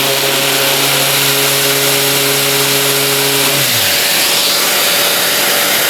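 Mirka electric sander running on a small workpiece with a steady loud whir. Part of the lower motor hum winds down about three and a half seconds in, while the rest of the noise carries on.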